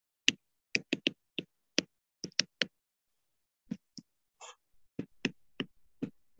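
Stylus tapping on a tablet screen while writing by hand: a string of sharp, irregular clicks, one for each pen stroke, with a pause of about a second partway through.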